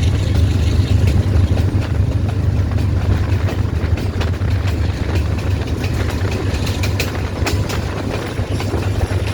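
GE U20 diesel-electric locomotive running with a steady low engine rumble, with a few sharp clicks about seven seconds in.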